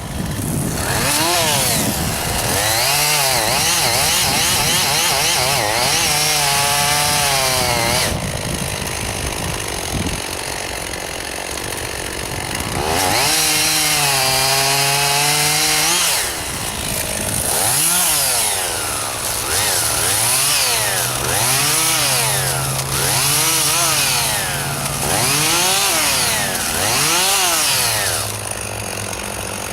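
Two-stroke chainsaw cutting juniper wood, its engine pitch rising and falling over and over as the throttle is worked. It drops back to a lower, steadier note for a few seconds about eight seconds in and again near the end.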